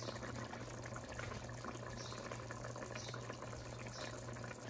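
Chicken stew broth bubbling at a steady simmer in a large pot on the stove, a soft continuous crackling of small bubbles, with a steady low hum underneath.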